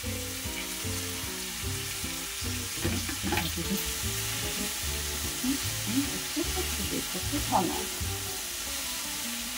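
Sliced green peppers and dried baby sardines (chirimen jako) sizzling in sesame oil in a frying pan as they are stirred with chopsticks, a steady frying hiss with a couple of light knocks.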